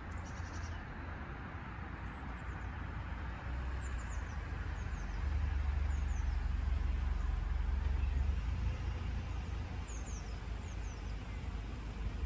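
Low, steady outdoor rumble that swells for a few seconds in the middle, with a few short, high bird chirps over it.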